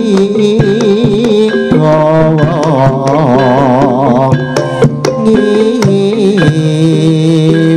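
Live campursari music from a Javanese ensemble, played continuously, with hand-drum strokes under a wavering melody line.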